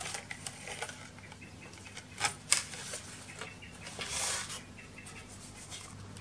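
Paper and cardboard packaging of an Apple Watch box being handled: light rubbing and tapping of card, with two sharp clicks a little over two seconds in and a brief scrape of card sliding a little past four seconds.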